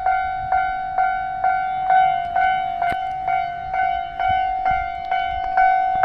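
Japanese railway level-crossing warning bell ringing: a repeating electronic ding about twice a second over a steady tone.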